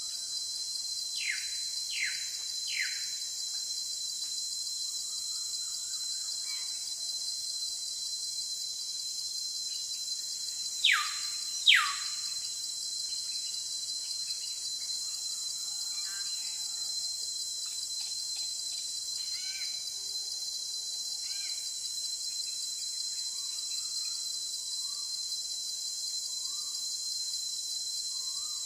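Jungle ambience: a steady, high-pitched insect chorus of crickets or cicadas, with bird calls over it. Three quick falling whistles come near the start and two louder ones around the middle, followed by scattered fainter chirps.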